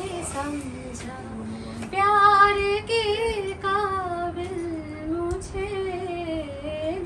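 A woman singing a slow song, holding long notes that waver in pitch.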